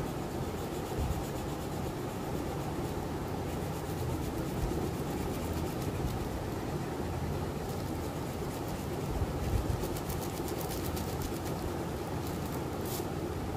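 Felt-tip marker scratching on paper in quick repeated strokes, clearest about ten seconds in, over a steady low background noise.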